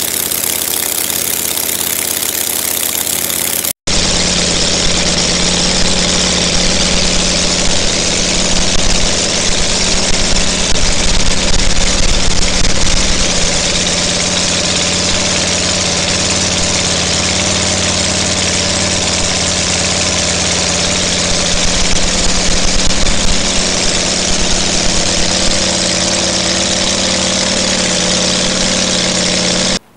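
A 1/3-scale model of the Kinner B5 five-cylinder radial aero engine running and turning its propeller, a steady unbroken engine note. It runs louder for a few seconds around a third of the way in and again near the end, and the sound drops out for an instant about four seconds in.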